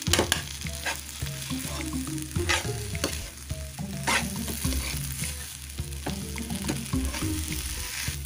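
Spatula scraping and pressing a mashed-potato aloo bharta mixture around an oiled non-stick frying pan, with sharp scrapes against the pan every second or two over a quiet sizzle. The bharta is being roasted (bhuna) on a medium flame.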